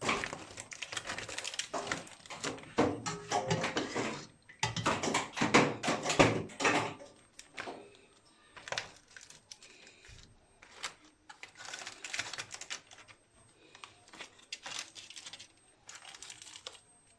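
A rapid run of clicks and taps, like handling or clattering small objects, dense and loud for the first several seconds, then sparser and quieter.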